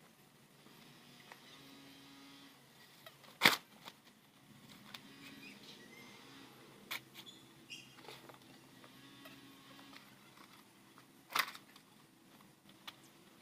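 Two sharp clicks about eight seconds apart, with a few smaller ticks, from laundry being hung on a clothesline, over a faint steady background.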